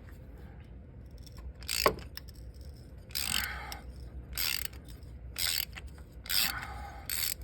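Socket ratchet clicking in short bursts about once a second, with a sharp click just before, as a loosened spark plug is backed out of the engine.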